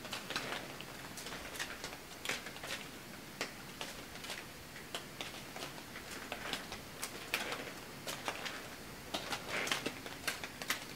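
Water dripping in irregular sharp ticks, several a second, close to a small wireless microphone.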